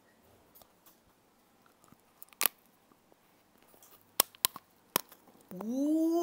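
Sharp cracks of teeth biting through the hard chocolate shell of a chocolate-coated ice cream, four in all, the loudest about two and a half seconds in. Near the end a long hummed "mmm" rises and then holds steady.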